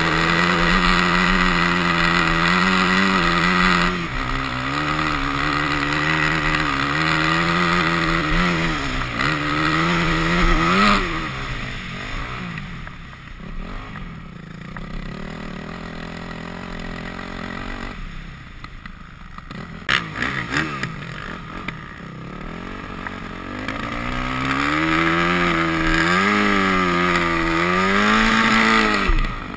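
Yamaha YZ250F dirt bike's four-stroke single-cylinder engine being ridden, its pitch rising and falling as the throttle is worked. It drops back quieter for a stretch in the middle, with a couple of sharp clicks, then revs up again before falling away suddenly near the end.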